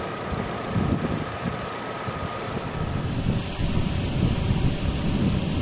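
Gusty wind rumbling on the microphone, swelling about a second in and again from about three seconds on.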